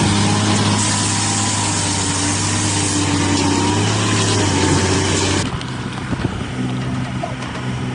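A heavy tractor-trailer truck's diesel engine running with a steady low drone. About five and a half seconds in, the sound cuts abruptly to a quieter engine running, with scattered knocks.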